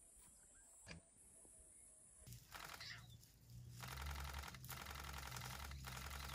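Near silence with a single click about a second in, then a safari vehicle's engine idling as a steady low hum, under a dense, rapid high buzz that breaks off briefly a few times.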